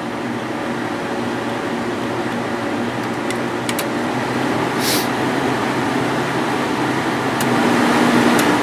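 1995 Sharp Comfort Touch 8,500 BTU window air conditioner running with its blower fan: a steady rush of air over a low hum, with a few light clicks and a vibration that grows louder near the end. The compressor has not yet kicked on.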